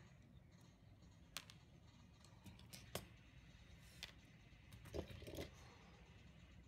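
A few sharp, separate clicks from handling a spring-loaded desoldering pump and soldering iron, then a short clatter about five seconds in as the pump is set down on the desk, over a faint low hum.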